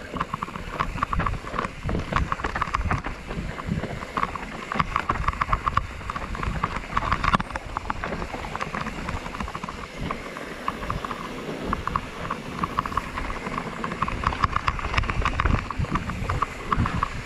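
Mountain bike running down a rough dirt trail: the bike rattles and clicks steadily over the bumps, with an uneven low rumble underneath.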